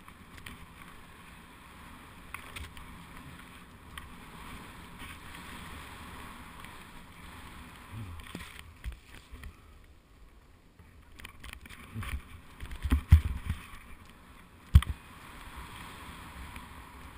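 Steady hiss of deep powder snow being cut through on a run, with a cluster of heavy thumps about twelve seconds in and one more sharp thump a second or so later, the loudest sounds.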